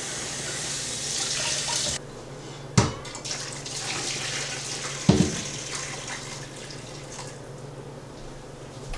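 Kitchen faucet running over a piece of cow's foot being rinsed. Then hot water is poured from a container onto cut cow's feet in a stainless steel bowl in the sink, splashing for a few seconds, with two sharp knocks along the way.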